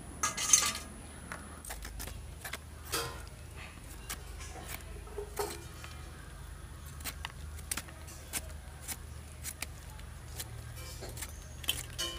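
Hand peeler and knife scraping and clicking against bottle gourd as seeds are scraped out and the green skin is peeled off, in short uneven strokes. The loudest is a brief metallic rattle about half a second in.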